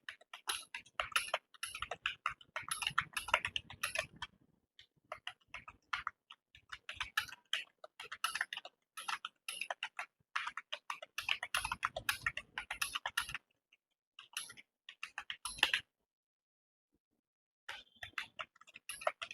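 Fast typing on a computer keyboard: runs of keystroke clicks in bursts, broken by short pauses, the longest about two seconds near the end.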